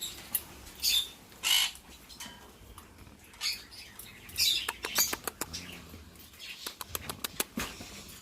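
Parrots giving short, harsh squawks at irregular moments, with a quick run of sharp clicks in the second half.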